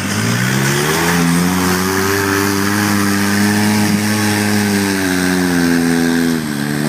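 Polaris RZR side-by-side's engine revving up within about a second and held at high revs as it drives through a wallowed-out mud hole, dropping briefly near the end and picking up again.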